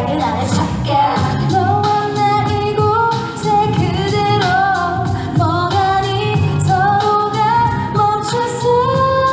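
A woman singing a pop song live into a microphone over a backing track with a steady beat, holding and bending notes in the melody.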